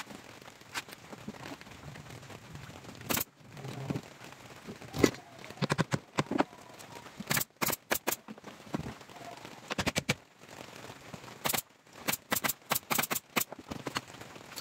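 Makita nail gun firing nails through a plywood strip into a speaker cabinet: sharp shots, some single and some in quick runs of three to five.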